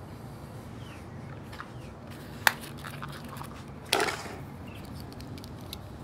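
A few light clicks over a low steady background, with one sharp click about halfway through and a louder clack with a brief ring-out a second and a half later.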